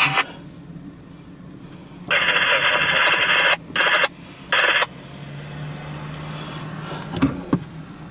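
Railroad scanner radio: a burst of radio static about two seconds in lasting about a second and a half, then two short bursts of static.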